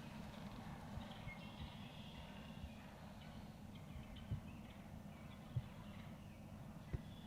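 Faint bird calls, short chirps and trills, over a low steady rumble, with three soft knocks in the second half.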